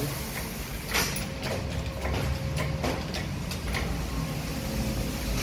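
Hydraulic jack of a steel drum lifter being hand-pumped to raise a loaded 55-gallon drum, with a few clicks and knocks from the pump handle and frame at uneven intervals over a low steady hum.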